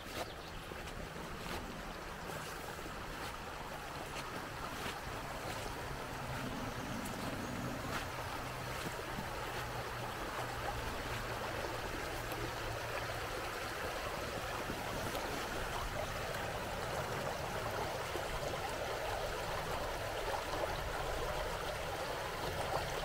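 River water rushing over a shallow, stony riffle: a steady rush of running water that grows slightly louder over the stretch.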